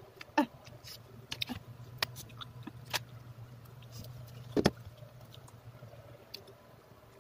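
A person eating spicy instant noodles: scattered small clicks and chewing sounds, with louder single sounds about half a second and about four and a half seconds in, over a steady low hum.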